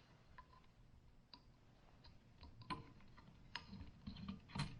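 Faint, scattered small clicks and ticks of hand tools and compressor parts being handled, a little busier near the end.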